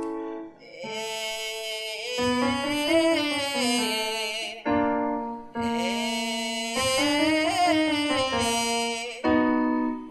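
Electric piano holding chords under a singer doing a vocal fry belting exercise. Each phrase starts low in the fry and slides up into sustained sung notes over the chord, about twice in full with a third starting near the end.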